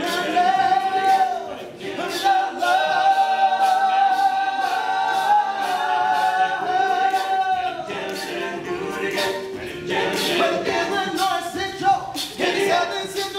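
Male a cappella group singing in close harmony over a steady beat of short, sharp vocal-percussion hits. Near the middle the voices hold one long chord for several seconds.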